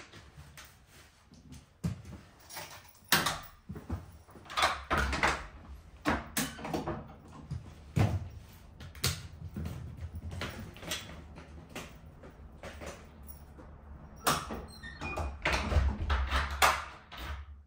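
Clicks, knocks and rattles of a Cybex folding stroller being handled and its wheels rolled over a tiled entryway floor, with a heavier knock and low rumble near the end as the front door shuts.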